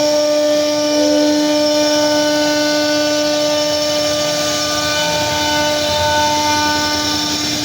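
CNC router spindle running with a steady whine while cutting wood, over a rough hiss from the cut.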